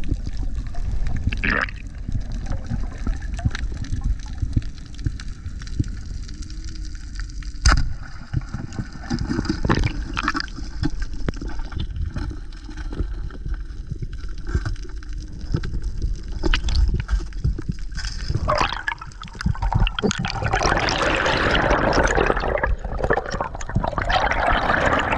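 Water gurgling and sloshing over a constant low rumble, with scattered knocks, growing louder and fuller for the last few seconds.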